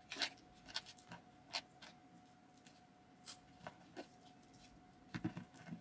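Small plastic clicks and taps of Nendoroid figure parts being handled and fitted together, scattered irregularly, with a quick cluster of clicks near the end.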